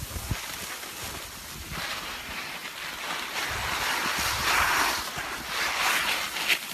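Skis hissing and scraping over packed snow on a downhill run, with wind rumbling on the microphone. The hiss swells loudest a little past the middle and again near the end.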